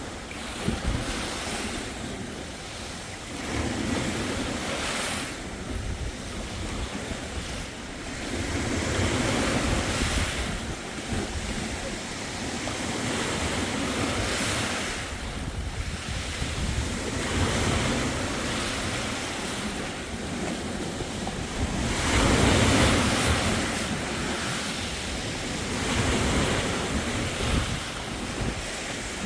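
Sea waves breaking and washing up a beach, the surf swelling and ebbing every few seconds with the biggest wave about two-thirds of the way through, with wind buffeting the microphone.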